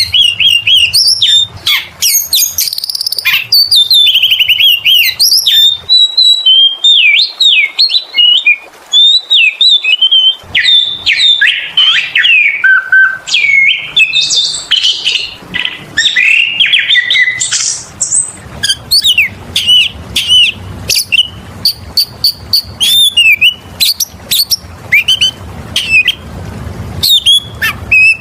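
Oriental magpie-robin (kacer) singing loudly and without a break, a varied run of rising and falling whistles, trills and sharp chipping notes. Past the middle it turns to quick series of short repeated notes. This is the bird in full song, the 'gacor', 'ngemplong' singing used as a lure recording.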